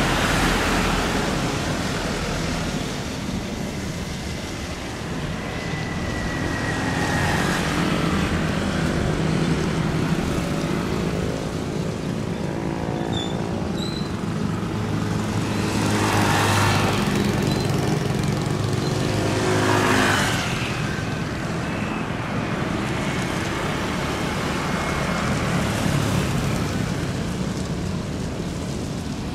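Road traffic passing close by as a steady rushing noise, with two vehicles swishing past about halfway through.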